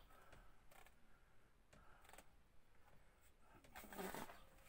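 Near silence with a few faint clicks and taps from the plastic roof-vent fan housing being handled, and a short low murmur of voice near the end.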